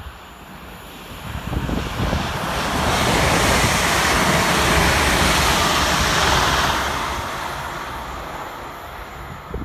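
London Northwestern Railway Class 350 electric multiple unit passing at speed: the rushing rumble of wheels on rail swells for a couple of seconds, holds loudest as the carriages go by, then fades away.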